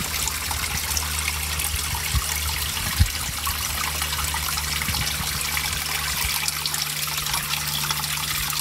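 Water running steadily, a continuous rushing hiss like a nearby stream, with a low steady hum underneath and a single knock about three seconds in.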